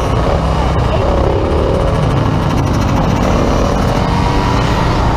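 Sport quad and dirt bike engines running and revving at speed, their pitch wavering up and down over a heavy wind rumble on the microphone.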